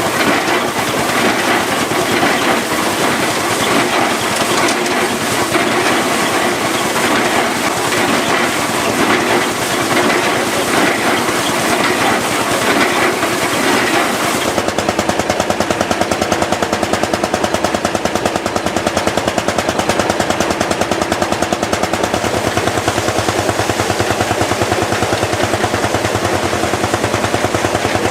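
Lanz Bulldog's single-cylinder two-stroke hot-bulb engine running with a rapid, even exhaust beat. For the first half it is mixed with the dense clatter of threshing machinery. About halfway through the clatter gives way to a clear, steady run of quick beats.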